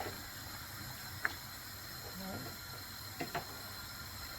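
A few light clicks and taps of cookware and utensils at the stove, once about a second in and twice in quick succession near three seconds, over a low steady rumble.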